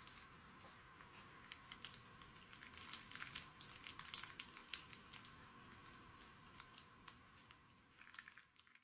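Faint, irregular crackling and ticking from a Hercules beetle working free of its pupal skin, densest in the middle, over a steady hiss.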